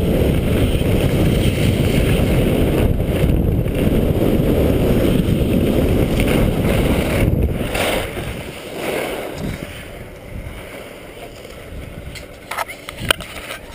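Wind rushing over an action camera's microphone during a downhill ski run, dying away about eight seconds in as the skier slows to a stop. A few sharp clicks near the end as a hand handles the camera.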